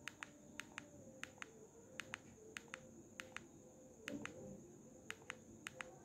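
Plastic navigation key of a keypad mobile phone being pressed repeatedly with a thumb, each press giving a double click, press then release, about eight times at a steady pace. One press about four seconds in is a little louder.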